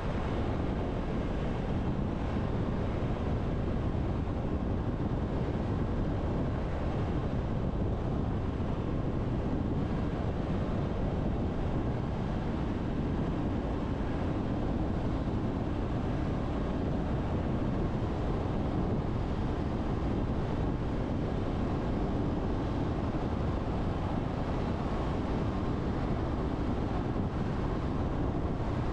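A car cruising steadily on a road, giving a constant low rumble of tyres and road noise that does not change throughout.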